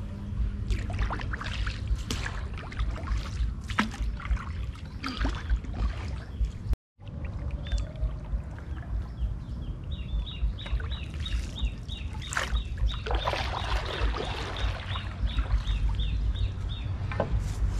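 Water splashing and sloshing with irregular strokes as someone moves through a flooded, muddy creek, over a low rumble. The sound cuts out completely for a moment about seven seconds in. Later a rapid series of high chirps repeats about three times a second for several seconds.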